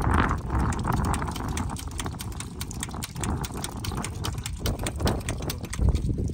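Quick, irregular clicks from hands working a wrench at a tractor's diesel fuel injection pump, over wind rumbling on the microphone.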